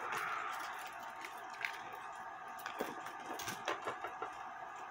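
Scattered light clicks and taps from a clock mainspring and its barrel being handled and fitted together, most of them in the second half, over a steady hiss.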